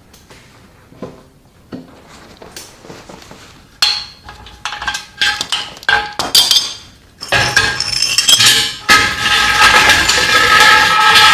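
Steel tools and a steel frame clinking and clanking against each other and the concrete floor, a few sharp metallic hits with a ringing tone, then after about seven seconds a loud continuous metallic rattling and scraping with a ringing tone.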